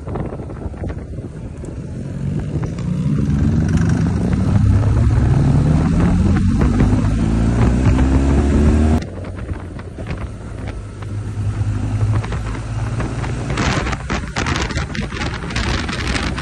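Motorcycle engine accelerating, its pitch rising steadily for several seconds, then breaking off suddenly to a lower, steady engine note. Wind buffeting the microphone builds near the end.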